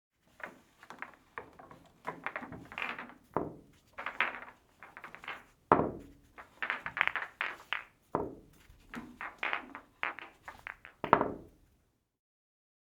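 Pool balls bouncing on a billiard table: a run of sharp clacks and knocks in bursts, with several louder hits that ring briefly, stopping about a second before the end.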